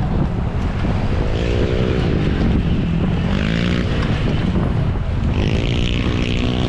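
Steady wind rush on a moving onboard microphone, over a nearby motor vehicle engine that revs up and down twice and then holds a steady pitch near the end.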